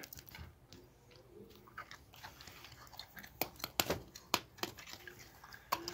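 A raccoon chewing dry kibble pellets. The first half is faint, then a string of sharp, irregular crunches follows about three seconds in.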